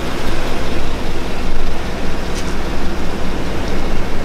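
A pickup truck's engine idling steadily, under a loud, even noise.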